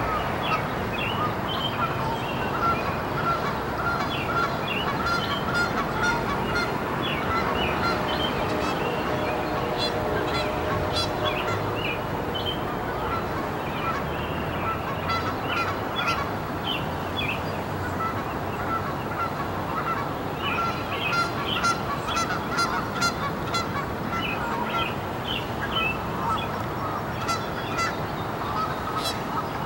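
Birds calling and chirping, many short calls all through, over a steady background rush.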